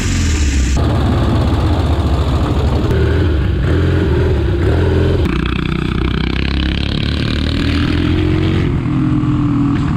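Motorcycle engine running and revving under way, its pitch rising and falling, with abrupt changes about a second in, about halfway and near the end where separate clips are cut together.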